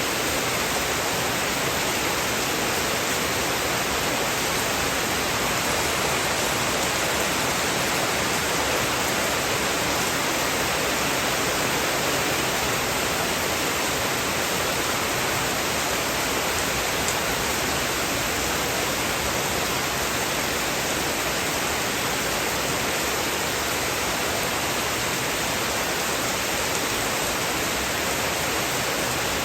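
Heavy rain falling as a steady, even hiss, with no thunder or other sudden sounds.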